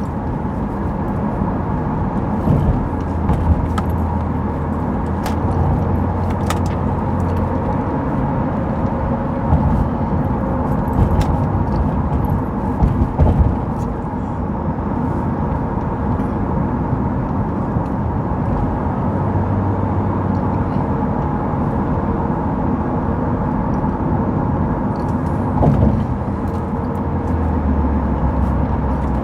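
Car cabin noise while driving: a steady engine and road rumble, with a few light clicks and rattles.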